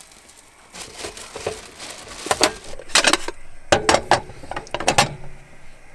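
Two-sided stovetop toastie maker being shut over a sandwich and its handles clipped together on a gas hob: a run of about a dozen sharp clicks and clanks, starting about two seconds in.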